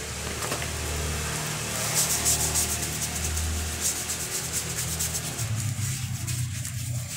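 Soapy scrubbing of a road bike's saddle by hand, a quick run of rubbing strokes, over a low steady hum.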